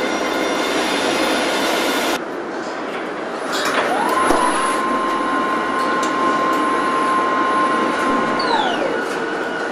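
Car body-shop machinery, industrial robots and conveyor, running steadily. A hissing noise cuts off suddenly about two seconds in. Then an electric drive whine rises, holds one steady pitch for several seconds, and falls away near the end.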